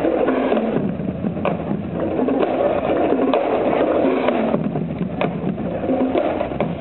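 Parade cars driving slowly past close by, their engines running at low speed.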